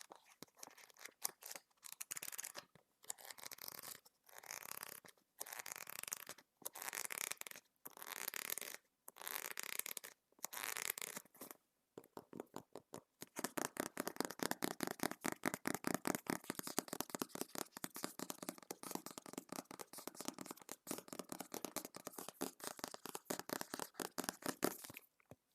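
Scratching and rubbing on a book, at first in separate strokes about once a second, then from about halfway in a long run of rapid, closely spaced strokes.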